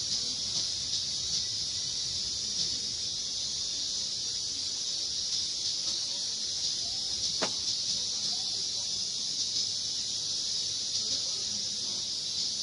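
Steady high-pitched chorus of insects droning without a break, with a single short click about seven and a half seconds in.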